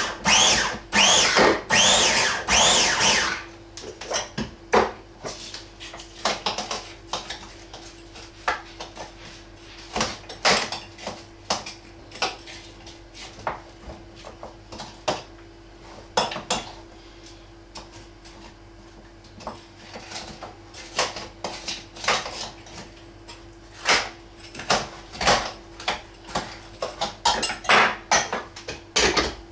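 Small electric food chopper pulsed in about five short bursts, its motor whining up and falling off each time as it chops onions. It is followed by a long run of clatter, clicks and knocks as the plastic chopper bowl and lid are handled, with kitchen utensils and a pot tapping on the counter.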